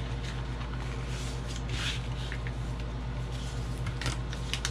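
Chipboard being folded along its score lines and burnished flat: scattered rustles and scrapes of board and paper, a longer scrape about two seconds in and a few sharp clicks near the end, over a steady low electrical hum.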